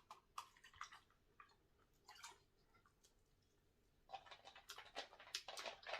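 A person chewing food close to the microphone, faint, with scattered small mouth clicks and a denser run of chewing noise from about four seconds in.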